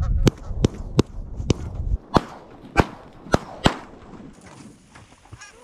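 Volley of shotgun fire from several hunters: about eight sharp shots in under four seconds, fired at Canada geese coming into decoys, then the shooting stops.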